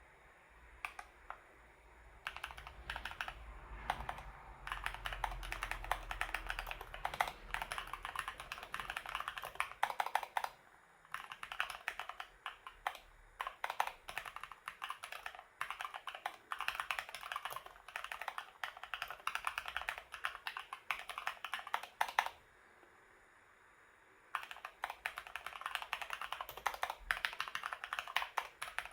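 Typing on a Keychron K2 V2 mechanical keyboard with newly fitted keycaps: dense, fast runs of key clicks starting about two seconds in, a pause of about two seconds near the end, then typing again.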